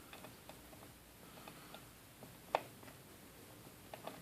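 Faint small clicks and taps of a pointed screwdriver tip working at the battery connector inside an opened MacBook Pro, with one sharper click about two and a half seconds in.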